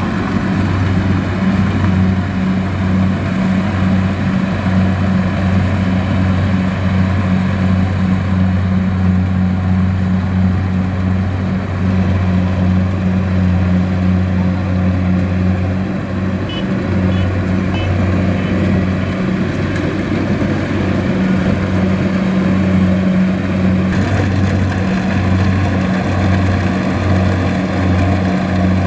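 Diesel engine of a crawler rice combine harvester running steadily under load with an even drone while it cuts and threshes rice.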